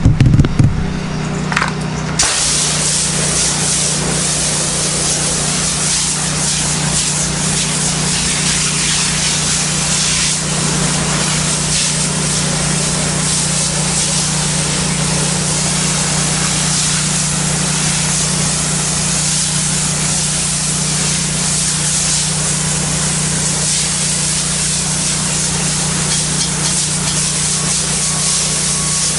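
Pressure washer running with a steady hum; about two seconds in, the trigger opens and a continuous water spray from the low-pressure black tip starts hissing against the ceramic tile floor.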